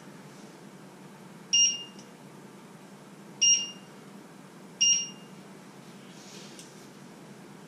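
Three short electronic beeps, spaced about a second and a half apart, from a glass-ceramic hob's touch controls as they are pressed.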